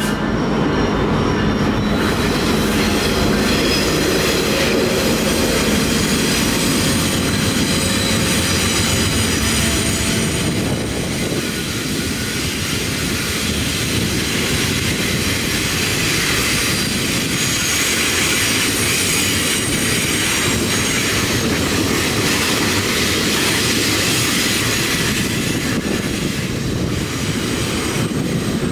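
Double-stack container train passing on a curve: the diesel locomotives' steady engine drone in the first ten seconds or so, then the stack cars rolling by with wheel squeal and clicking over the rail joints.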